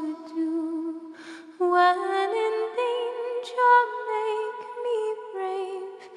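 A cappella hymn singing: unaccompanied voices holding slow, sustained notes with a gentle vibrato, moving from note to note with short breaths between phrases.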